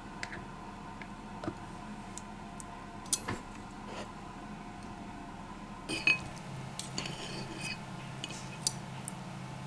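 Scattered light clinks and taps of kitchenware over a steady low hum, busier in the last few seconds.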